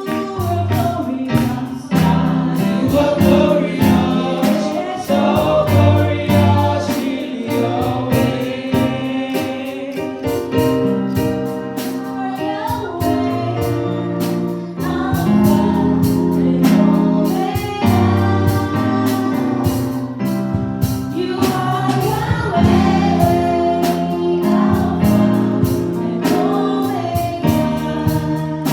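Gospel worship music: a choir of voices singing over instruments with a bass line and a steady beat.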